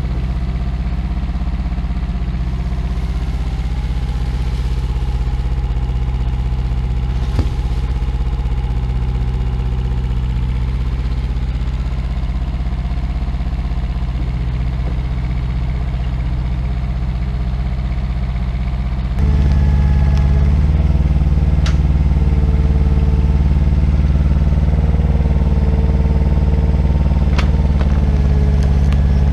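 IHI 9VX-3 mini excavator's diesel engine running steadily while the machine works its arm, with a few light clanks. About two-thirds of the way through the engine sound jumps suddenly louder and stays so.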